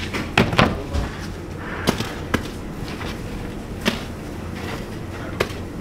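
Sharp wooden knocks and taps at uneven intervals, about six in all with two close together near the start: freshly baked Turkish flatbreads landing on a wooden bread peel and the peel knocking against the oven. A steady low hum runs underneath.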